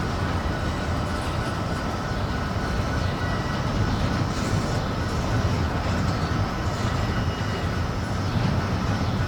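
Freight train cars rolling past at steady speed: a continuous rumble of steel wheels on the rails, with a thin steady ringing above it.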